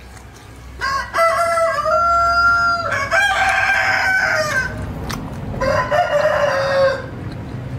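A rooster crowing loudly: a long crow starting about a second in, then a shorter crow a couple of seconds later.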